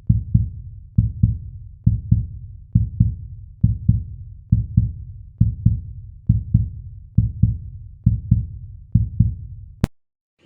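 Heartbeat sound effect: a deep double thump (lub-dub) repeating steadily about 70 times a minute, cut off by a single sharp click near the end.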